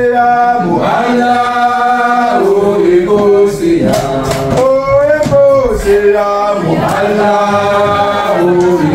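Men's voices chanting Sufi dhikr together, in long held melodic phrases that rise and fall in pitch.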